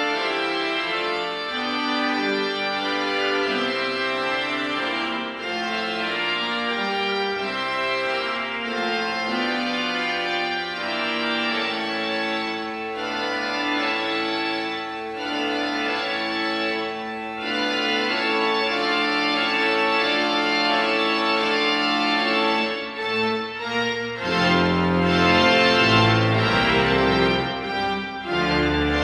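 Pipe organ playing slow sustained chords on the manuals. Near the end, deep pedal bass notes come in and the sound grows louder.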